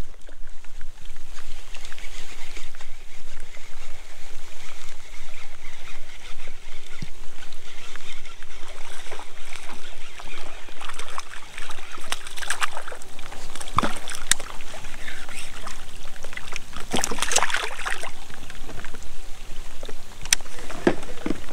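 Water sloshing and lapping against a plastic sit-on-top kayak's hull as it moves on the river, with scattered knocks and a couple of short flurries of splashing.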